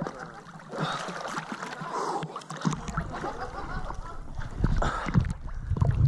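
Water splashing and lapping against a camera held at the waterline, as a swimmer surfaces from a free dive and treads water.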